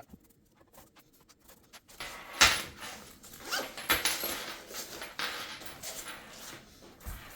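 Handling of a cable organizer case and its foam dividers: a sharp knock about two seconds in, then several seconds of rubbing, rustling and clicking that fade near the end.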